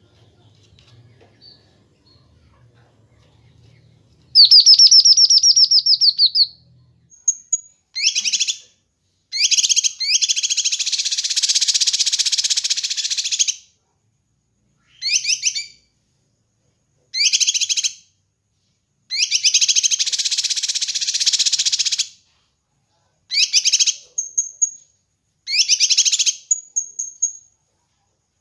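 Kinoi songbird singing loud, rapid, high-pitched trills in bursts of one to four seconds with short pauses between, mixed with a few brief high whistles. The song starts about four seconds in.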